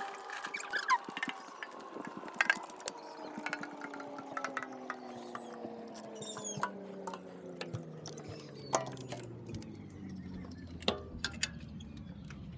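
Alternator mounting bolt and tools clicking and tapping against metal as the bolt is wiggled into its bracket, in irregular small knocks. Behind them a faint hum drifts slowly down in pitch.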